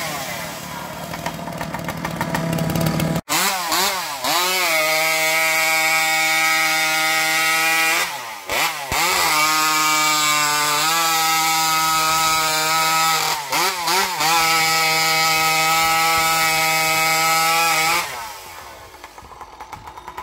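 Two-stroke chainsaw held at high revs, its note dipping briefly and picking straight back up a few times before dropping away about 18 seconds in.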